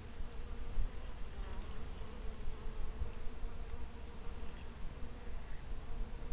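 A flying insect, such as a fly or bee, buzzing near the microphone in a steady, slightly wavering hum, over a low rumble.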